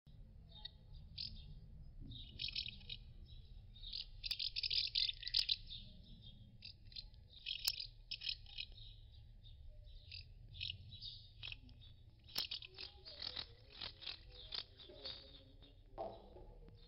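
House martins twittering at their mud nests: many short, high chirps in quick bouts, with a run of scratchy clicks in the second half.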